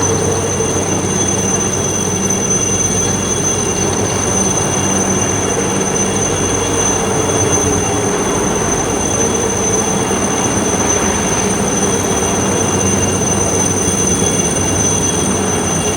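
Steady, loud running noise of a vehicle in motion, with a constant high-pitched whine and a low hum that hold unchanged throughout.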